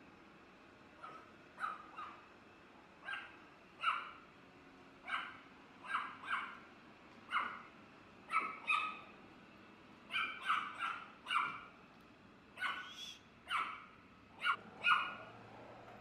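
Yorkshire terrier barking over and over in high, sharp yaps, coming quicker in the second half. It is alarm barking at a robot vacuum the dog is not yet used to.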